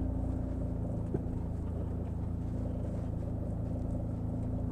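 John Deere Gator utility vehicle's engine running steadily at low speed while towing a bale unroller that unrolls a round bale of hay, with a faint click about a second in.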